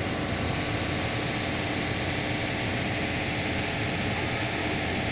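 Steady rushing noise aboard a moving passenger motor boat: engine drone, water washing along the hull and wind on the microphone, with no break or change.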